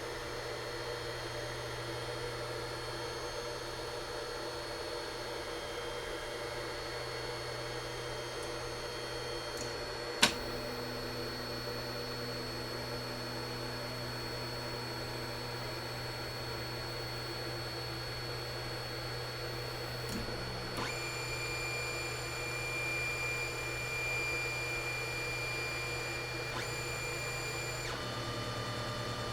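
Anycubic Chiron 3D printer running while its bed heats: a steady motor-and-fan hum with faint whining tones. A single sharp click comes about ten seconds in. New high-pitched whining tones come in about two-thirds of the way through and change again near the end.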